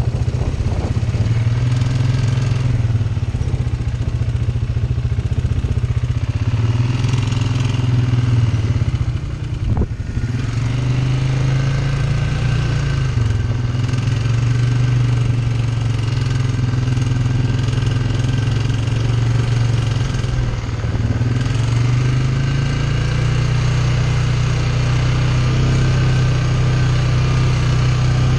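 ATV engine running while under way, its note rising and falling with the throttle. It eases off briefly about ten seconds in, with one sharp knock, then picks up again.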